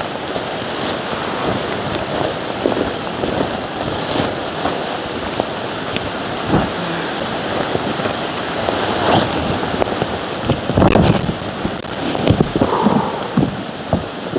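Heavy rain falling steadily, an even hiss, with scattered louder knocks and thuds that come more often in the last few seconds.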